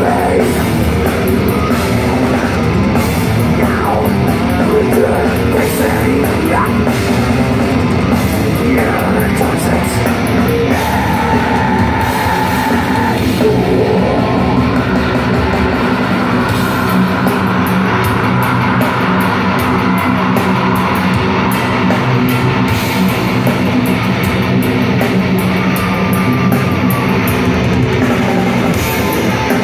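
A death metal band playing live at full volume: distorted electric guitars, bass and fast drumming with cymbals, heard from the crowd.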